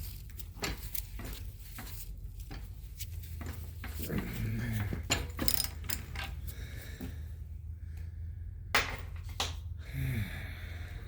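Hand tools working a seized brake caliper slide pin on a Subaru Impreza's rear brake bracket: scattered metallic clicks and knocks at irregular intervals over a steady low hum, with a couple of short grunts about four and ten seconds in.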